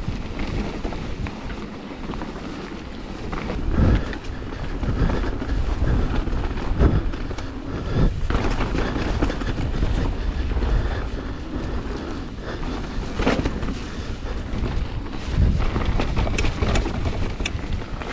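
Mountain bike riding down a wet, muddy trail: wind rumbling on the action camera's microphone over the hiss of tyres in mud, with several sharp knocks as the bike hits bumps.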